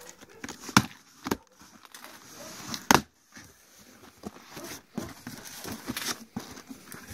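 Cardboard shipping box being torn open by hand: tape and flaps giving way in a few sharp cracks, the loudest about three seconds in, with rustling of cardboard and plastic air-cushion packing.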